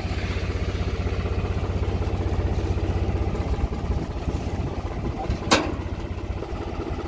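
An engine idling with a steady low pulse. A single sharp click or knock comes about five and a half seconds in.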